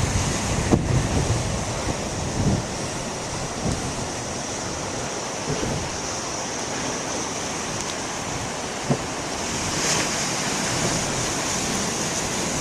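Storm surf breaking and washing ashore, with wind gusting on the microphone, strongest in the first couple of seconds.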